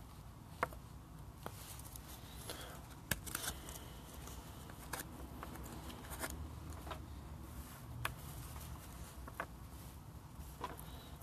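Baseball trading cards being handled and flipped through by hand: irregular sharp clicks of card stock snapping against card stock, with soft rustling between them.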